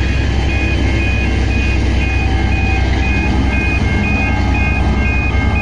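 Level crossing warning bells ringing about twice a second over the steady low rumble of an N class diesel-electric locomotive's engine.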